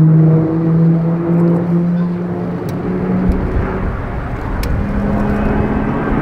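Formation of Pilatus PC-21 turboprop trainers passing overhead, their propellers and PT6A turboprop engines making a steady droning hum. The pitch climbs a little through the middle.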